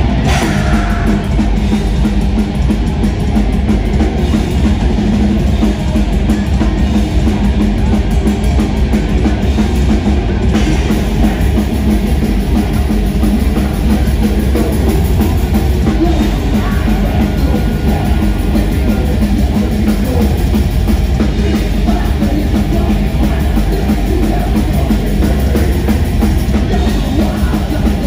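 A thrash metal band playing live and loud through its amplifiers and PA: distorted electric guitars over a steady drum kit beat, with no breaks.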